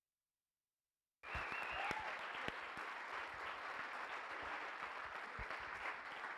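Audience applause, cutting in abruptly after about a second of dead silence and then holding steady, with a short high call from the crowd just as it begins.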